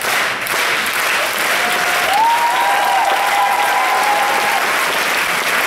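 Audience applauding steadily, with a long high cheer held over the clapping for about three seconds from about two seconds in.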